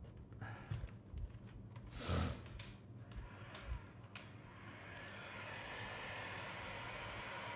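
Light handling clicks and a short breath, then about five seconds in a heat gun starts up and blows steadily, used to soften the adhesive holding the phone's back cover and battery.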